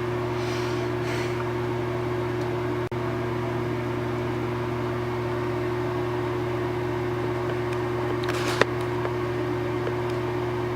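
Steady mechanical hum of a running household appliance, with a constant low drone and a higher tone over it; a faint click about eight and a half seconds in.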